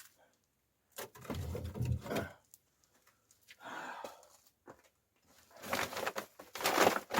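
Firewood and half-burnt pieces being handled and pushed into a wood-burning stove: scattered knocks and scraping, growing into a louder, denser clatter for the last second or so.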